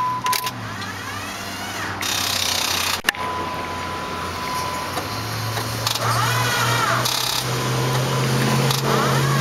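Starter motor of a Jeep Grand Cherokee with a blown engine cranking it without the engine firing, on a battery that is running out of charge. There is a sharp click about three seconds in, then a steady hum from about five seconds in.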